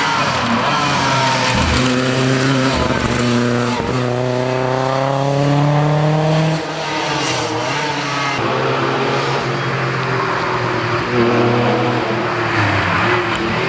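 Historic rally car engine running hard on a stage. The pitch climbs steadily under acceleration from about four seconds in, drops suddenly at a gear change or lift-off a couple of seconds later, then picks up again.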